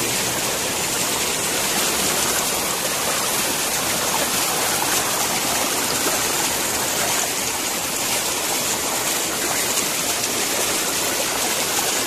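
Shallow stream water rushing and splashing over a plastic sheet and net laid across the current: a steady, loud rush of water.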